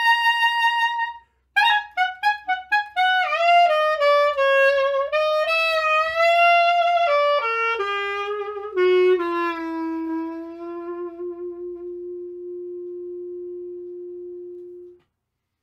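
Solo clarinet playing a melody: a high held note that stops about a second in, then after a brief pause a run of notes stepping downward, settling onto one long low held note that fades out near the end.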